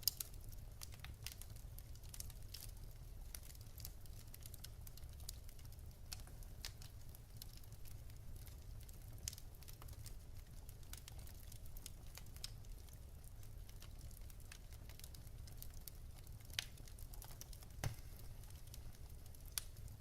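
Wood fire crackling in a fireplace: a steady scatter of small snaps over a low rumble, with a few sharper pops near the end.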